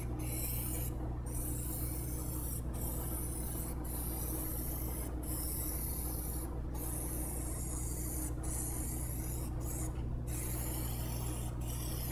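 Aerosol can of Plasti Dip spray paint hissing steadily as it is sprayed onto an alloy wheel, broken by short gaps every second or so as the nozzle is let off between passes. A steady low hum runs underneath.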